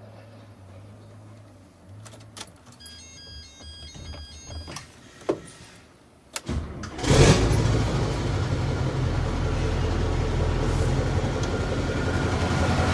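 Mack E9 V8 diesel truck engine cold-starting. A few clicks and a run of short high beeps come first. About six and a half seconds in the engine cranks and catches with a loud burst, then settles into a steady idle.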